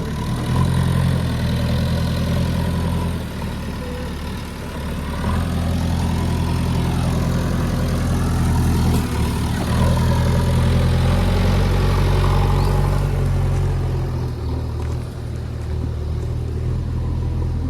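Heavy diesel engine running, its revs rising and easing off several times.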